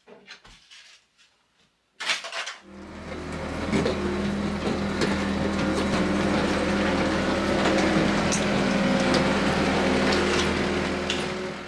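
A few faint shovel scrapes in dirt, then a compact track loader's engine starts up suddenly about two seconds in and runs steadily under load as its bucket pushes soil, with clanks and scraping over the engine.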